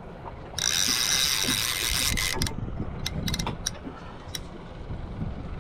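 A fishing reel's drag buzzing as a hooked fish pulls line off. The buzz runs for about two seconds, then gives way to scattered clicks.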